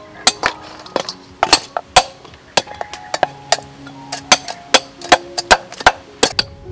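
Cleaver chopping a large fish on a round wooden chopping board: a quick, irregular run of sharp knocks, about two to three a second. Soft background music with held notes plays underneath.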